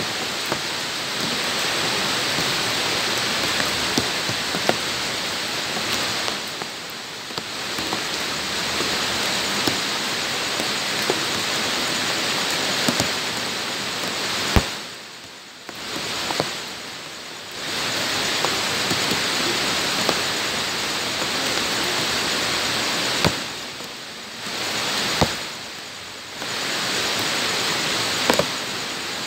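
Steady rain falling on bare ground: a continuous hiss with individual drops splatting through it. The sound drops away briefly a few times.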